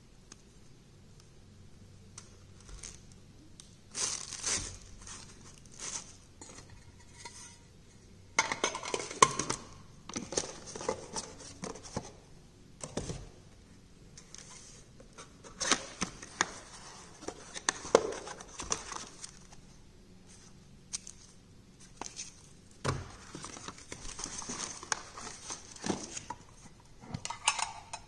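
Watch packaging being handled by hand: paper and plastic rustling and crinkling, with scattered clicks and knocks as the cardboard watch boxes are moved and set down. Near the end a G-Shock box is opened and its inner metal tin is slid out, with light clinks.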